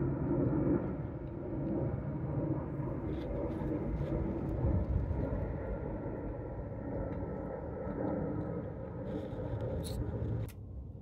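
Steady low rumble of a running car engine that drops away abruptly near the end, with a few faint clicks on top.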